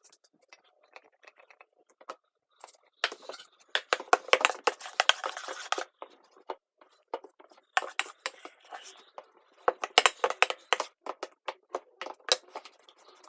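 Slime mixture of clear glue and glitter being stirred in a bowl: a utensil scraping and clicking against the bowl in irregular spells.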